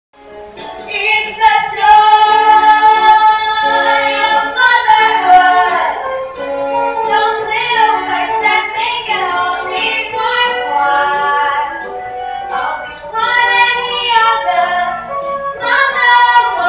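Music with a female voice singing a melody, starting from silence just after the beginning.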